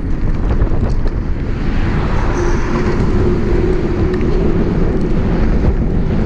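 Steady wind rush buffeting an action camera's microphone on a moving bicycle, mixed with road noise. A faint steady hum from passing traffic rises about two seconds in and fades a couple of seconds later.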